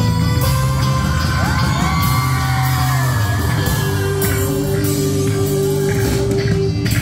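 Live band playing a song: drum kit, acoustic and electric guitars and a female lead singer, echoing in a large gymnasium, with audience members whooping and yelling.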